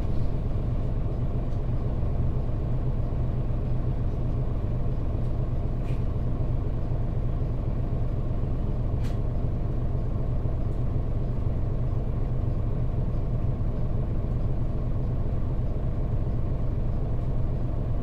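Mitsubishi Fuso KL-MP35JM city bus's 6M70 naturally aspirated 12.9-litre straight-six diesel idling steadily, heard from inside the passenger cabin, with a few faint clicks.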